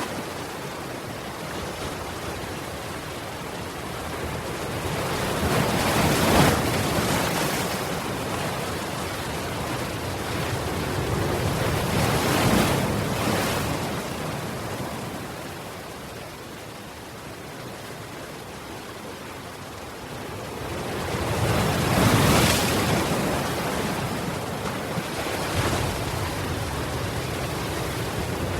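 Ocean waves breaking on a shore, the surf swelling and falling back in slow surges; the biggest breaks come about six, twelve and twenty-two seconds in.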